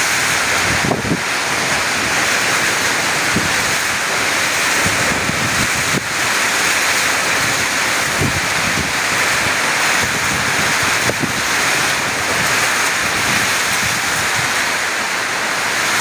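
Storm noise: a steady, loud rush of wind-driven rain, with a few brief wind buffets on the microphone.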